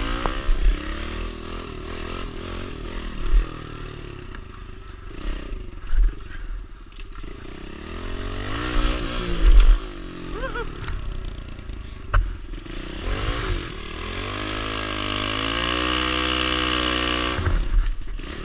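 Kawasaki KLX110 pit bike's small single-cylinder four-stroke engine being ridden, revving up and falling back again and again. Near the end it climbs and holds a steady high rev for a few seconds. Occasional short thumps sound through it.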